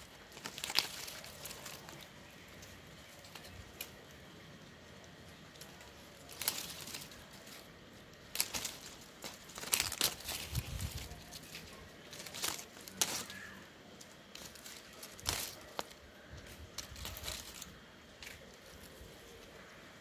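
Leaves and twigs of a rambutan tree rustling and crackling as the branches are handled, with sharp clicks scattered throughout from spring-loaded pruning shears cutting fruit clusters.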